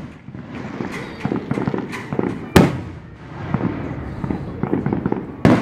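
Aerial fireworks shells bursting: two loud booms, about two and a half seconds in and again near the end, with a run of smaller pops and crackles between them.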